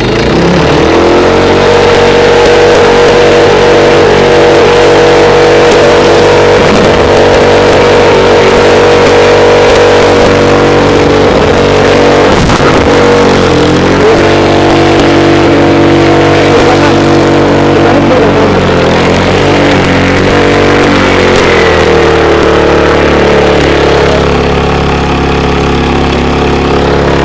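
Small petrol engine of an Alkon-type portable water pump catching and revving up to a loud, steady high-speed run. Its pitch sags briefly about halfway through and again about three quarters in, then it runs slightly quieter near the end.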